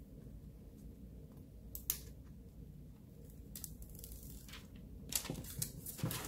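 Faint handling of a Pocophone F1 smartphone, with a scratch about two seconds in, then crackly rustling near the end as the protective plastic film with its barcode label is peeled off the phone's back.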